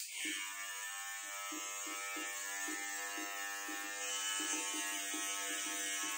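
A small electric motor buzzing steadily, with a bright hiss over it.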